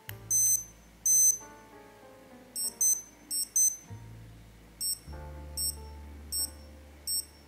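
Breitling Aerospace Evo SuperQuartz watch beeping: two longer high beeps, then two quick double beeps, then a run of single short beeps. Soft piano background music plays underneath.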